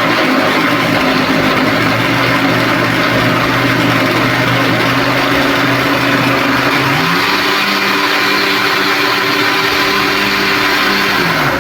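Electric kitchen blender motor running steadily, its pitch stepping up about seven seconds in, then switched off abruptly near the end.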